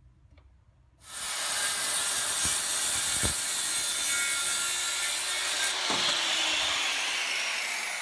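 Power tool cutting timber: a steady, loud cutting noise starts abruptly about a second in and runs on, easing off a little near the end.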